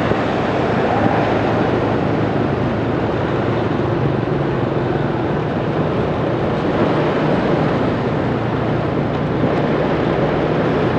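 Steady engine hum and road noise of a vehicle moving through city traffic.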